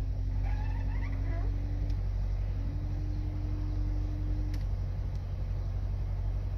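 Car engine idling with a steady low hum, heard from inside the cabin. Over it the rear wiper motor hums at a steady pitch through two sweeps of about two seconds each, the second ending after about four and a half seconds.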